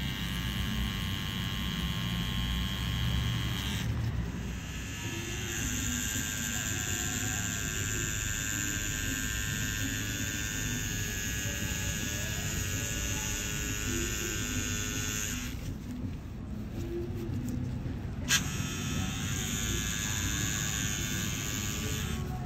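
Pen-style cartridge tattoo machine buzzing with its needle working into skin. It stops for a few seconds about two-thirds of the way through, then starts again with a click.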